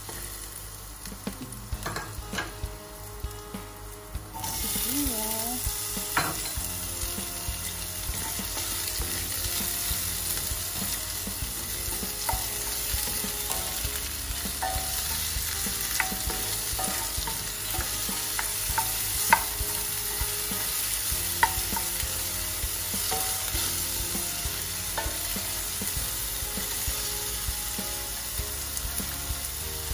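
Garlic frying in hot oil in a stainless steel pan, stirred with a plastic slotted spoon that ticks against the pan now and then. About four seconds in the sizzle suddenly grows louder as sliced red onion goes into the oil, and it stays at that level.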